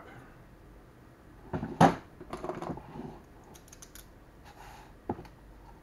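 Scattered light clicks, taps and rustles from handling a bubble-wrapped, taped package and a snap-off box cutter, with one louder click about two seconds in and another sharp click near the end.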